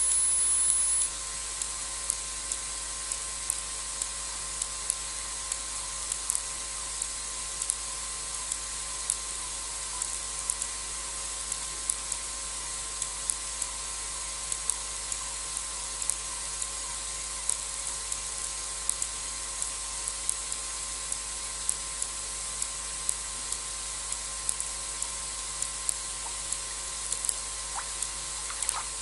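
Steady hiss of an outdoor live-cam microphone, with a high whine that cuts off about a second in and short sharp clicks about once or twice a second.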